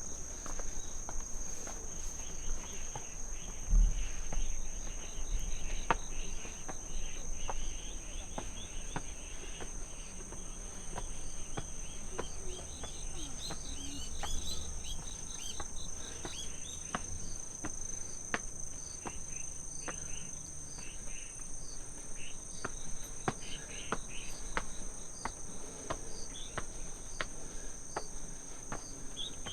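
Crickets and other autumn insects chirring steadily in high, unbroken tones, with many short chirps over them. Light ticks come at an even pace about twice a second, and there is one low thump about four seconds in.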